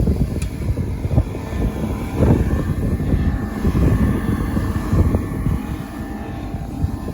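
Propane gas forge burning, its burners giving a loud, steady low rumbling rush of gas flame.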